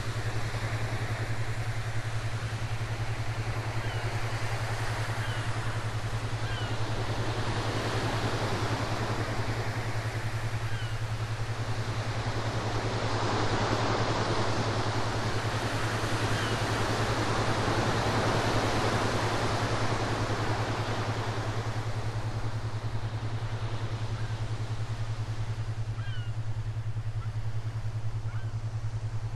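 Recorded ocean waves: a slow swell of surf that builds to a peak about halfway through and then recedes, over a steady low hum. A few short, faint high chirps come and go.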